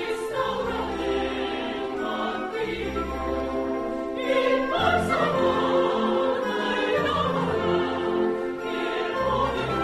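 Orchestral opera music with singing voices, in a classical style with a sustained singing line.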